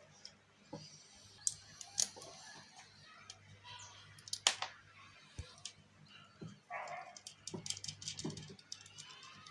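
Scattered clicks, taps and small knocks of hand tools and parts being handled while a welding machine's internal cables and output sockets are fitted back in place. There is one sharper knock about halfway through and a quick run of light ticks near the end, over a faint steady low hum.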